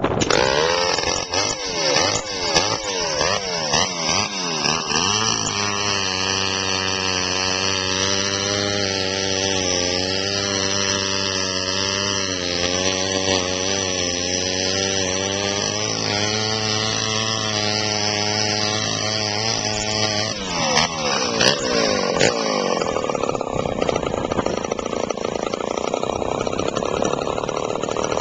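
Homelite Super XL two-stroke chainsaw running. It is revved up and down for the first few seconds, then settles into a steady idle for about fifteen seconds. After a couple more blips it runs steadily at high revs toward the end.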